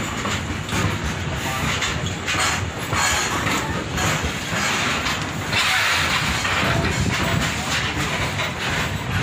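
Goods train of covered freight wagons rolling past close by: a continuous rumble of steel wheels on the rails with an irregular clatter, and a harsher rushing hiss for about a second and a half a little past the middle.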